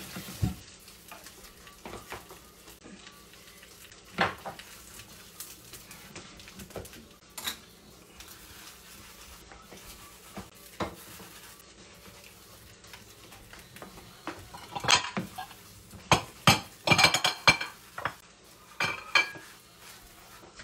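Knife and naan being handled in a metal frying pan: scattered clinks and knocks of metal on the pan, turning into a busier clatter toward the end, over a faint sizzle of butter.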